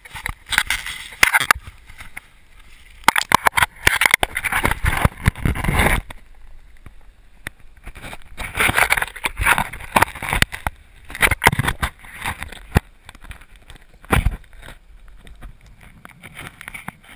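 River water sloshing and gurgling around a camera dipped at and below the surface of a shallow river. It comes in irregular splashy bursts, about one to three seconds long, with muffled knocks and clicks between them.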